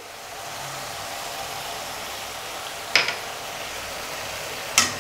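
Onion-and-ground-masala gravy sizzling steadily as it fries in oil in a kadai. Two short clicks come about three seconds in and again near the end.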